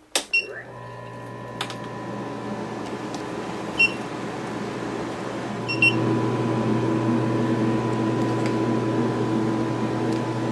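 Radio-frequency skin-tightening machine switched on with a couple of clicks, then running with a steady electrical hum and fan noise that slowly grows louder and steps up about six seconds in. Two short high beeps come about four and six seconds in.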